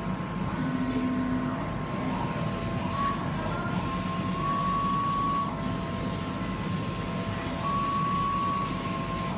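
Laser cutter running: the gantry's motors whine in thin steady tones that step up in pitch for a second or so at a time as the laser head travels across the printed fabric, over a constant low mechanical hum.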